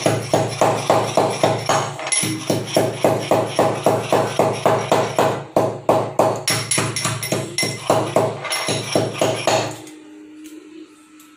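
Green cardamom pods being pounded with a steel pestle in a small steel tumbler: quick, ringing metal-on-metal strikes, about four a second, stopping about ten seconds in.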